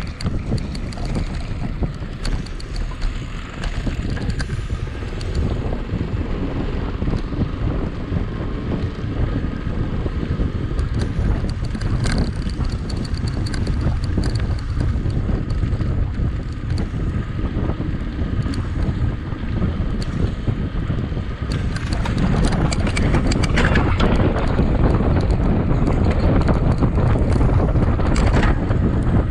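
Wind rushing over the microphone of a camera carried on a mountain bike at speed, with frequent clicks and knocks from the bike rattling over the trail. It gets louder about three quarters of the way through.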